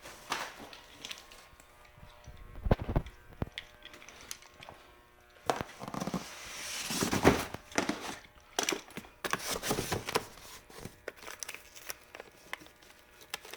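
Cardboard cases and boxes being handled and shifted: scattered knocks and thuds with rustling and scraping of cardboard, loudest about 3 and 7 seconds in.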